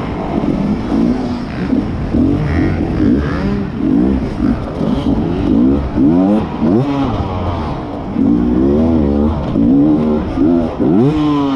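Beta enduro motorcycle's engine heard from on the bike, revving up and down over and over as the throttle is worked through the turns and bumps, with a sharp rise in revs near the end.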